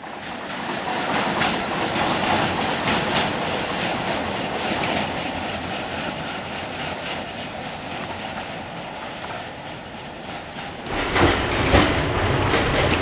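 Tatra tram running along its track, wheels clattering on the rails. About eleven seconds in the sound changes to inside a moving tram: louder, with a deeper rumble and rapid clicking of the wheels over the rail joints.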